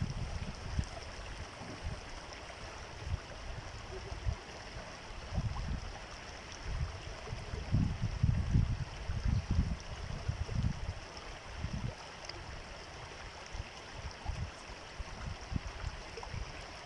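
Muddy floodwater rushing and churning along a flooded wadi in a steady wash, broken by irregular low rumbling gusts on the microphone.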